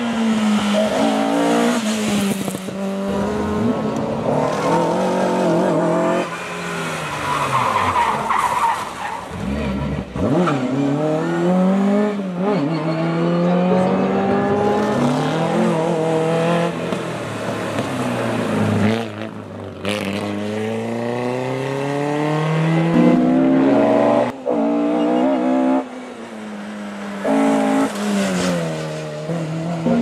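Historic rally cars, among them a Ford Escort Mk2 and an Opel Kadett, revving hard through the gears as they pass at racing speed one after another. The engine note climbs and drops repeatedly with the gear changes, and there are short breaks where one car's run gives way to the next.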